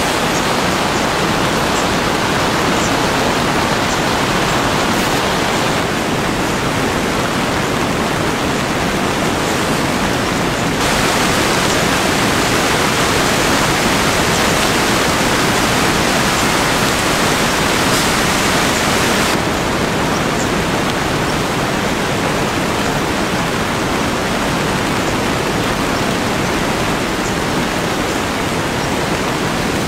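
Heavy rain falling on a tent shelter and the ground around it: a steady, loud hiss that changes abruptly in tone a few times, brighter through the middle third.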